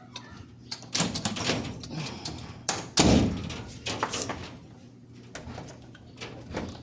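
Screen door knocking and rattling as a door closer is worked into place on it, with a loud thud about three seconds in.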